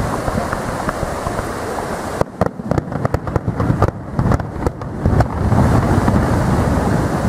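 Distant aerial fireworks rumbling, with a run of sharp pops and cracks from about two to five seconds in, heard through wind noise on the microphone.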